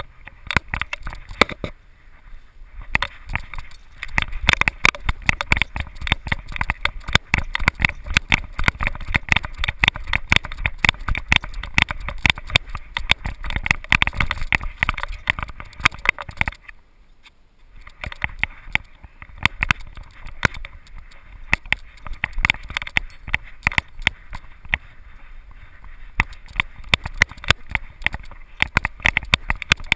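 Rapid clicking and rattling of an action camera mounted on a dog's harness, jostled with every step as the dog trots, with low rumble from the mount. The rattling stops for about a second a little past halfway, then resumes.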